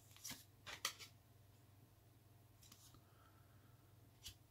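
Faint flicks and snaps of baseball trading cards being slid off a stack by hand, a few soft ones about a second in and one more near the end, over a low steady hum.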